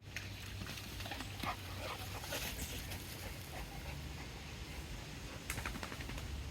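A dog making short, faint whining sounds, over a low steady rumble.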